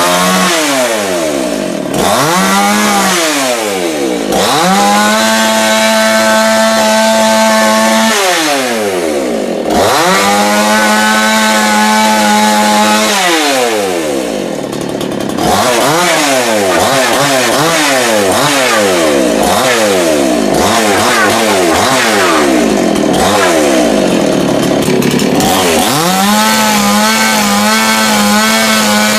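Chainsaw revved up and held at full throttle for about four seconds, twice, dropping back toward idle between. In the middle comes a run of quick throttle blips, and it is held at full throttle again near the end.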